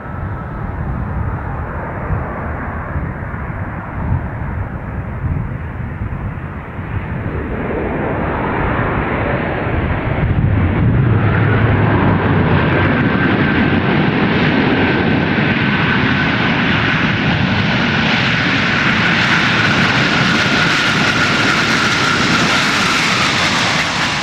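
Boeing 747's four jet engines on the landing rollout: a rushing roar that swells about a third of the way in and then stays loud, with a steady whine that slowly falls in pitch.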